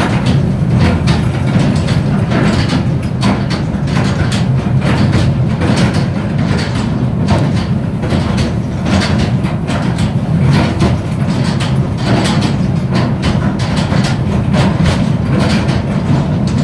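Zamperla Demolition Derby ride machinery running under the platform: a steady low rumble from the turning discs and their rollers, with frequent irregular metal clacks and knocks as wheels and gondola guide fins run along the track.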